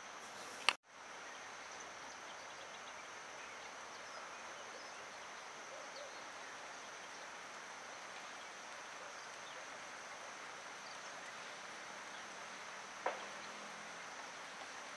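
Forest ambience: a steady high-pitched insect drone over an even hiss. A sharp click comes under a second in, and another about two seconds before the end.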